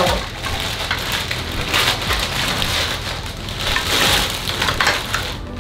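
Plastic wrapping crinkling and rustling in uneven surges as a stand-up paddle board paddle in its clear plastic bag is pulled out of the box.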